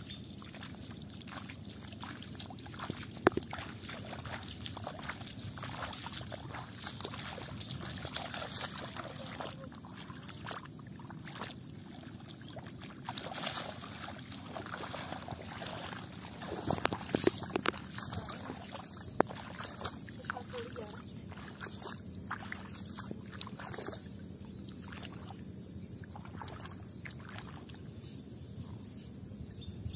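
A person wading through shallow, muddy water: irregular sloshing steps and splashes, the loudest cluster about halfway through. A steady high insect buzz runs underneath.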